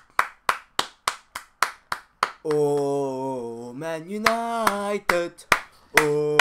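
Hand claps at an even beat of about three a second, then from about two and a half seconds in men's voices singing a drawn-out football chant in long held notes, with a few more claps.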